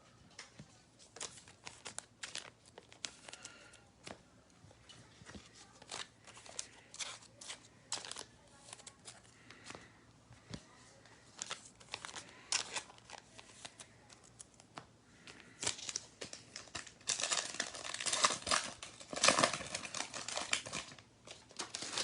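A trading card pack wrapper being torn open and crinkled, with cards being handled, in a series of short crackles and scrapes. The crinkling is densest and loudest near the end.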